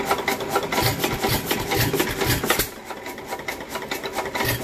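Early-1900s hit-and-miss engine running, its flywheels turning with a fast ticking clatter and a few heavier low thumps in the first half. It gets somewhat quieter a little past halfway.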